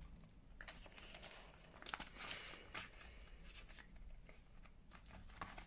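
Faint rustling and light clicks of plastic zip-pouch pages being turned by hand in a ring-binder budget planner, with a slightly louder rustle about two seconds in.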